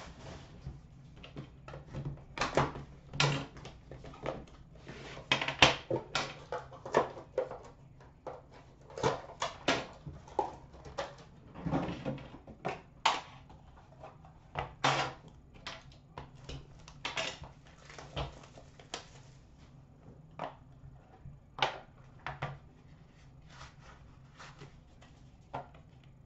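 Hands unpacking a hockey card box: irregular short knocks, clicks and scrapes of cardboard and packaging being handled, a lid lifted and an inner tray slid out.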